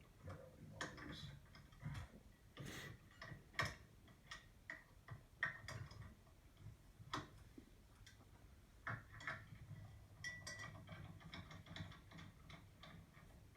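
Faint, irregular metallic clicks and clinks of hand tools being handled, a few sharper ones standing out.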